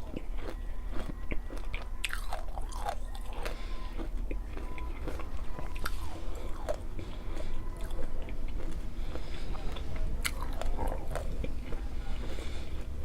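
Biting and chewing of a Nerds Rope candy, a gummy rope coated in tiny hard Nerds candies, which crunch in many short, irregular crackles.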